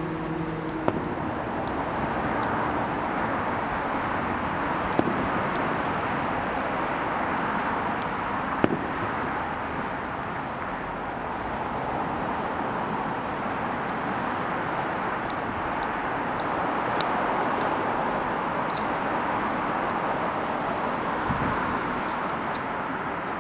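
Steady outdoor city background noise, like distant road traffic, with a few faint sharp pops scattered through it.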